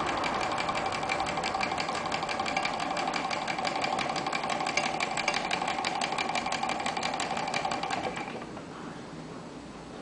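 Small homemade Stirling engine running fast, its flywheel, crank and bearings clattering in a rapid, even rhythm over a steady whine. About eight seconds in the clatter stops abruptly as a hand halts the flywheel, and only a soft hiss remains.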